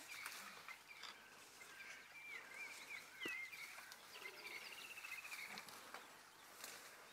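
Faint bush ambience of birds calling: short whistled notes that glide up and down, then a rapid trill of quickly repeated notes for about a second and a half, with a few soft clicks.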